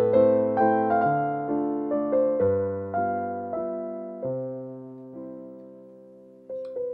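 Background piano music: a slow, gentle melody of struck notes over chords, fading away near the end before a new phrase starts.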